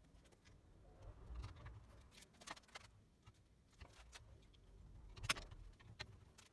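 Faint handling noise of a compound bow being strung: scattered light clicks and taps of the metal cams, cables and tools under the hands, with one sharper click about five seconds in.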